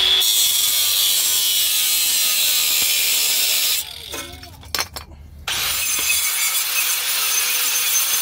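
Angle grinder running against the rusty end of an exhaust pipe, cleaning the metal up for welding. It stops for about a second and a half midway, then runs again.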